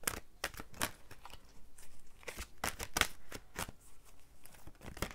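A deck of oracle cards shuffled by hand: an irregular run of crisp card clicks and flicks, loudest about halfway through.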